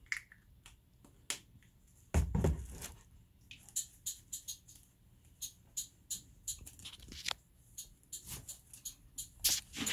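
Aerosol shaving cream can being shaken by hand so it will dispense: a run of irregular sharp clicks and taps, with one heavier dull thump about two seconds in.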